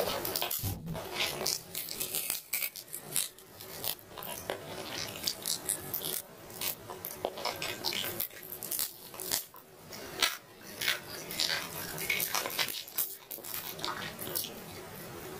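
Close-miked eating sounds of a person chewing roast chicken: many quick, irregular mouth clicks and smacks.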